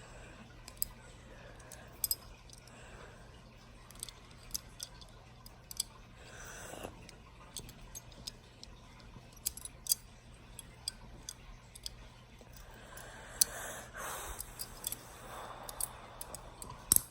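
Small, sharp clicks scattered irregularly, from a pair of steel handcuffs being handled and fiddled with.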